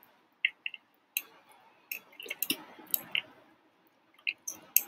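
Irregular light clicks and taps, a dozen or so short ones spread unevenly.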